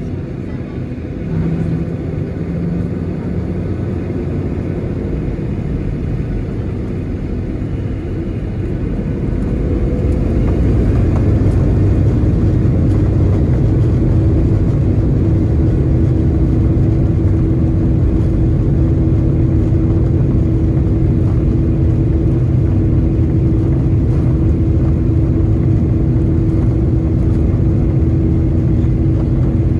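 Boeing 737-800's CFM56-7B turbofan engines, heard from inside the cabin, spooling up with a rising whine about nine seconds in. They then hold a steady loud rumble and drone at takeoff power as the airliner rolls down the runway.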